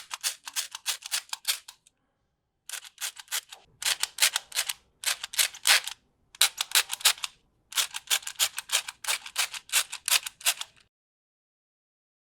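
Quick runs of sharp clicks from handling toys, about five or six a second, in bursts broken by short pauses, then quiet for about the last second.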